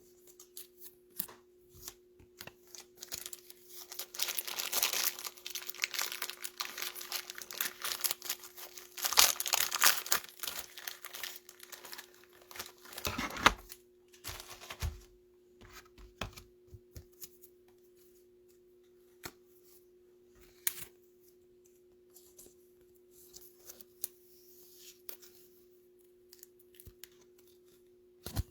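Plastic rustling and crinkling as trading cards are slipped into soft penny sleeves and rigid plastic top loaders, with scattered taps and clicks, over a faint steady hum. The rustling is densest in the first half and thins to occasional clicks later.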